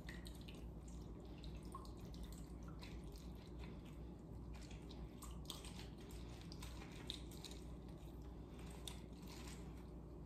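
Faint wet squishing and dripping as a lemon is juiced by hand on a reamer into a glass measuring cup, over a low steady hum.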